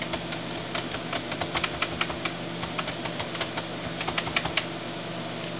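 Keys being typed on a computer keyboard in short irregular clicks, over a steady hum with a few held tones.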